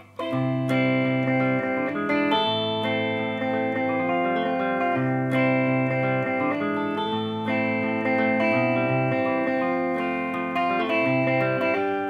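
Telecaster electric guitar played through a small combo amp, picking an instrumental intro: ringing chords over a line of low notes that change about once a second, starting suddenly at the outset.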